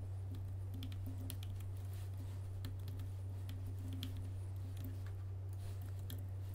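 Typing on a computer keyboard: irregular quick keystrokes over a steady low hum.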